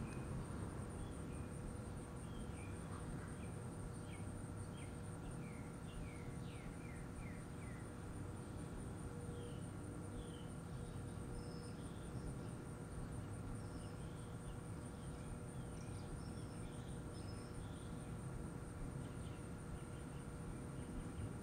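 An insect trilling steadily at a high pitch, with scattered short bird chirps and a faint low rumble underneath.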